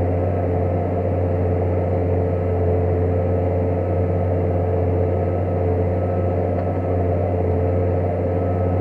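New Holland T7050 tractor's six-cylinder diesel engine running steadily at constant speed while ploughing. A deep, even hum with no change in pitch or level.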